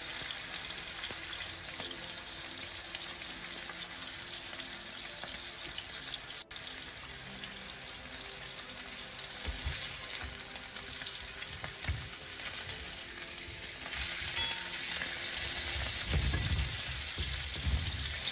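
Pork chops sizzling steadily in hot oil in a nonstick frying pan. A few soft low knocks come from a fork turning the chops, and the sizzle grows a little louder in the last few seconds.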